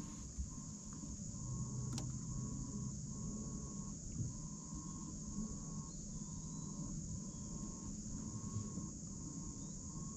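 Steady high-pitched insect chorus, with a short mid-pitched tone repeating about one and a half times a second over a low steady hum, and a single click about two seconds in.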